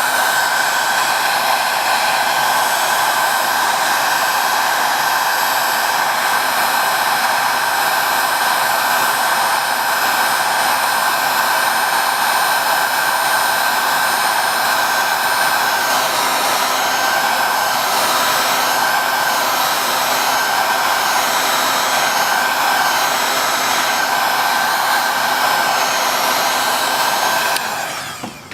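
Electric hot-air blower running steadily, heating a phone's back glass to soften its adhesive: a rush of air with a constant whine, switched off shortly before the end.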